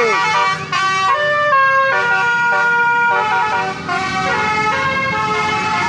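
Multi-tone basuri (telolet) horn playing a tune: a string of held notes stepping up and down in pitch, with a short sliding siren-like sweep at the start.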